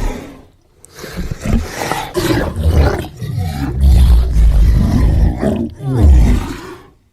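Sound-designed demon creature voice: deep, rough growling with whispery rasps, coming in several surges after a short pause near the start, and cutting off just before the end.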